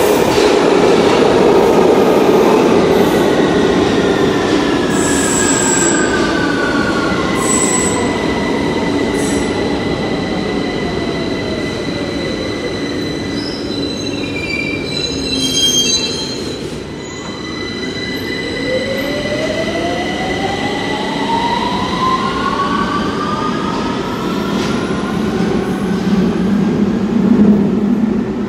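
London Underground Victoria line 2009 Stock train braking into the platform, its traction-motor whine falling in pitch as it slows. It stands with a steady hum and a few short beeping tones near the middle, then pulls away about two-thirds of the way through, its whine rising in pitch as it accelerates out.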